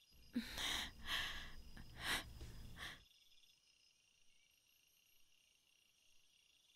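Soft sighing breaths and rustling of bedding, several short noisy sounds over about three seconds, as a woman gets up from a floor mattress. After that, only faint, steady cricket chirring of a night-time ambience.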